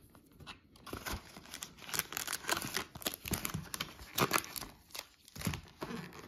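Trading-card blister pack being torn open by hand: irregular tearing and crinkling of the cardboard backing and plastic, loudest about four seconds in.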